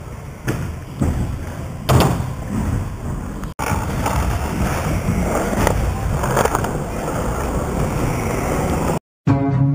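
Skateboard wheels rolling steadily over a smooth concrete floor, with a few sharp knocks in the first couple of seconds. The sound cuts off abruptly near the end and music with a plucked bass starts.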